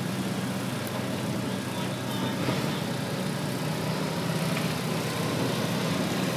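Heavy truck's engine idling, a steady low hum that holds even throughout.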